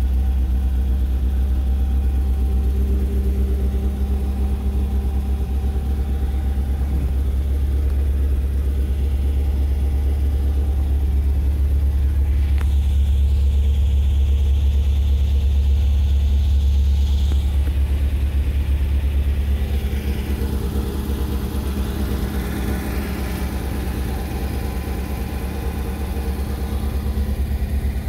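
1971 MGB GT's 1.8-litre B-series four-cylinder engine idling steadily as it warms up after a cold start, heard from inside the cabin.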